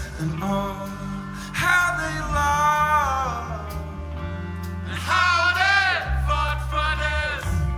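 Background music with a singing voice over a steady bass and accompaniment.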